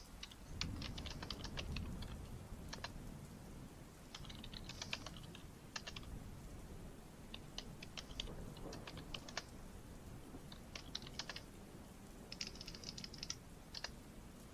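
Typing on a computer keyboard in short bursts of key clicks with brief pauses between them. Underneath is a low background rumble that comes up about half a second in.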